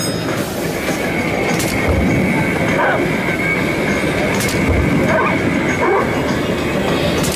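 Bob's Space Racers Big Dog Pounder arcade games running: a continuous rumbling clatter with short electronic game sounds over it. A steady high electronic tone enters about a second in, and there are faint low thumps every few seconds.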